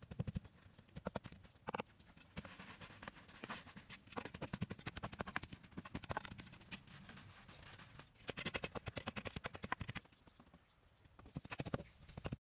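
A rapid, irregular series of short, hard knocks and taps, several a second, bunching into quicker runs at times and cutting off abruptly near the end.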